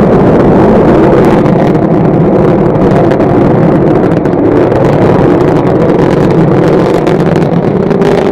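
Rocket engines roaring at launch: a loud, steady, rumbling roar.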